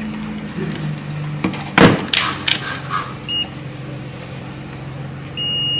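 Digital multimeter continuity beeps: a short beep a little past three seconds in and a longer, louder beep near the end, over a steady low electrical hum and a few clicks of handling.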